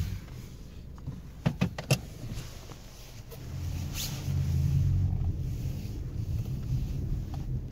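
Lexus UX heard from inside the cabin: a low rumble from the car as it reverses, growing louder about three and a half seconds in. A few sharp clicks and knocks come about one to two seconds in.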